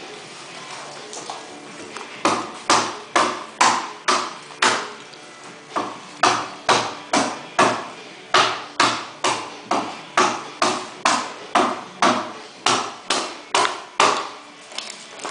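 Hand adze chopping into a red cedar totem pole log in steady, even strokes, about two a second, starting about two seconds in.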